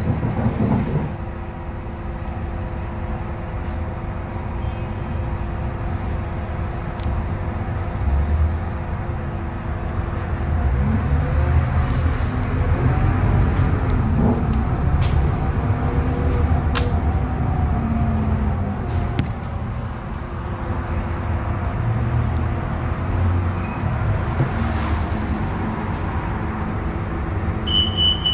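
Scania K280UB city bus heard from inside the cabin: its rear-mounted Scania DC09 five-cylinder diesel and ZF Ecolife automatic gearbox hum steadily at first, then the engine pitch rises and falls as the bus moves through the gears from about a third of the way in. Occasional knocks and rattles are heard, and a rapid electronic beeping starts near the end.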